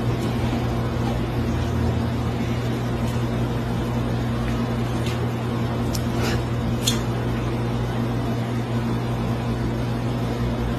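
Steady low hum of a large aquarium's pump and filter, with a few brief sharp clicks around the middle.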